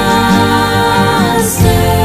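Slow music with long held chords, shifting to new notes about one and a half seconds in.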